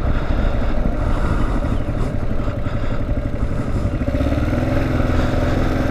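Kawasaki KLR650 motorcycle's single-cylinder engine running steadily as the bike rides along, heard from the rider's position.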